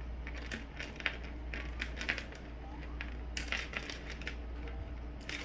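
Plastic fidget chain being handled and pulled apart: a run of small clicks and crackles, with a denser cluster of clicks about three and a half seconds in.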